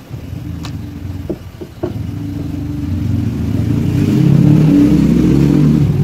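An engine running and growing steadily louder over a few seconds, with a few light clicks of screwdriver work on plastic in the first two seconds.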